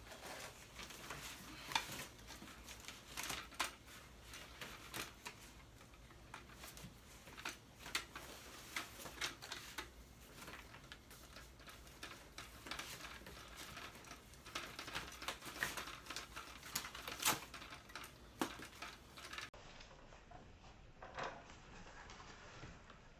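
Parts of a Dyson V8 cordless vacuum and its stand being handled and fitted together by hand: irregular clicks, taps and knocks, with some rustling in between.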